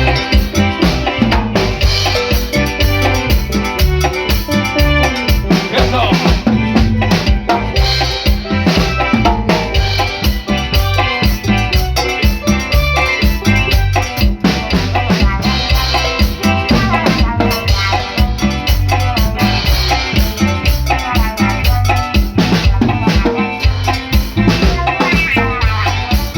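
Drum-kit rhythm with bass drum and snare keeping a steady beat, with pitched instruments playing over it.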